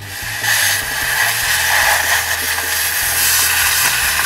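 Thermal Dynamics Cutmaster 42 plasma cutter striking its arc about half a second in, then cutting steel with a loud steady hiss.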